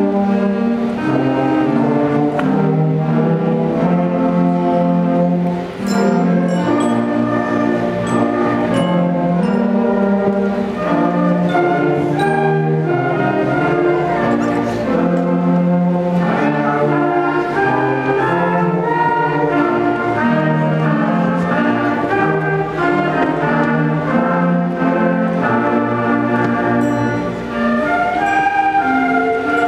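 School concert band of woodwinds and brass (flutes, clarinets, saxophones, trombones) playing a slow piece in held chords.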